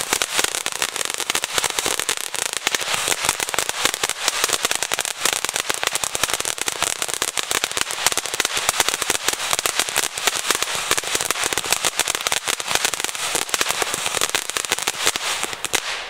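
Svea 'Hong Kong Fountain' ground-fountain firework burning: a steady hissing spray of sparks with dense crackling all through. It cuts off suddenly near the end as the fountain burns out.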